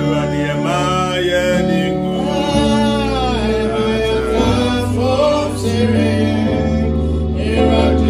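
Gospel music: a man singing over long held bass notes and accompanying instruments.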